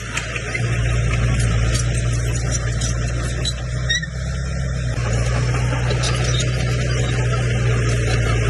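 Komatsu bulldozer's diesel engine running under load: a steady low drone that grows louder less than a second in, dips briefly about four seconds in, then picks up again, with a short squeak at the dip.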